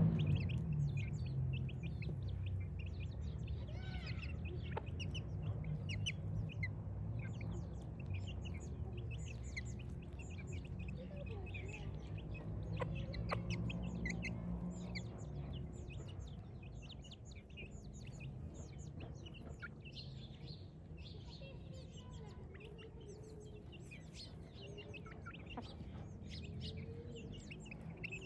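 Domestic chicks peeping, many short high chirps overlapping without a break, with hens clucking lower now and then.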